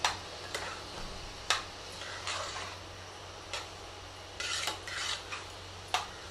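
A metal spoon stirring soft rice in a metal pressure cooker: about five sharp clinks of the spoon against the pot, with softer scraping through the rice between them.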